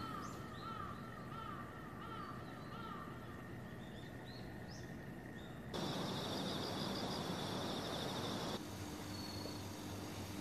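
Small birds chirping in short, repeated rising-and-falling calls. About six seconds in, this switches abruptly to a louder steady hiss with a high, rapid trill, which cuts off about three seconds later and leaves a low steady hum.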